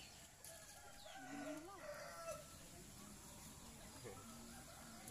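A rooster crowing faintly, once, about a second in, a wavering call lasting roughly a second over quiet background.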